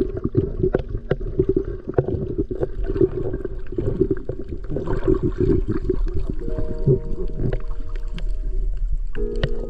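Water sloshing and gurgling against a small boat's hull under a steady low rumble, with dense, irregular splashes. A few held musical notes come in about six and a half seconds in and again near the end.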